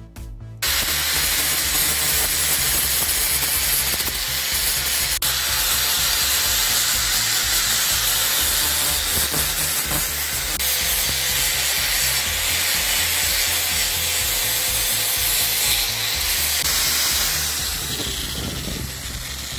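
Angle grinder grinding a steel hammer head, a steady loud grinding that starts about half a second in and dies down near the end.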